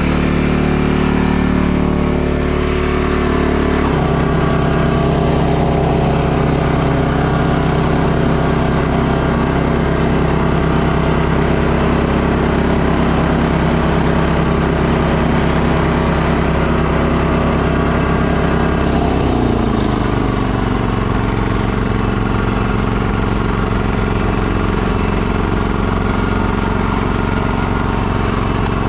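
Gas snowblower engine running steadily. Its pitch shifts about 4 s in, then drops and settles lower around 20 s in.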